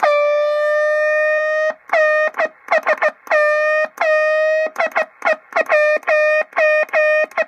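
Morse code sent on a straight key and heard through a Heathkit HW-16's receiver, which picks up the rig's own transmission: a loud, buzzy tone with many overtones, keyed on and off as one long tone of nearly two seconds followed by a run of short and long elements. The sound is pretty hideous. The receiver is not being muted properly during key-down.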